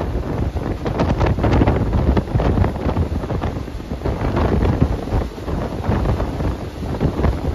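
Wind buffeting the microphone, with the running noise of a moving passenger train underneath.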